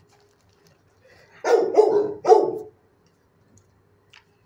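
A dog barking three times in quick succession, about a second and a half in.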